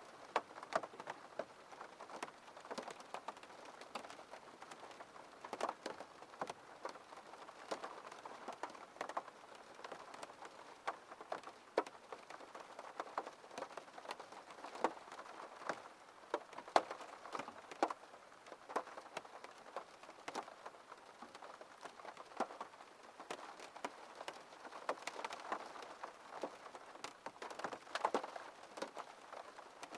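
Rain falling on a window pane: a steady patter with many separate drops tapping irregularly on the glass.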